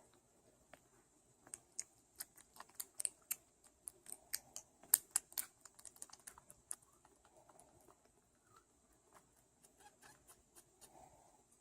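Kitten suckling from a feeding bottle: a run of quick, sharp, faint clicking and smacking sounds, densest in the first half, thinning out after that.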